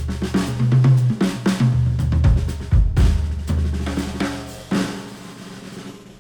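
Instrumental music with a drum kit (kick, snare, hi-hat and cymbals) over a bass line, played through open headphones and picked up by microphones at the earcups. It thins out and fades over the last second or so.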